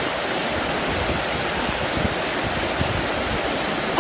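Steady rushing noise with no clear pitch or rhythm, the kind made by running water or wind on a microphone.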